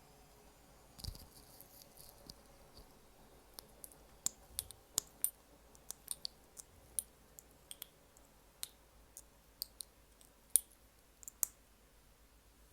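Close-miked ASMR mouth sounds: short sharp clicks, irregularly spaced at one or two a second, with a soft low thump about a second in.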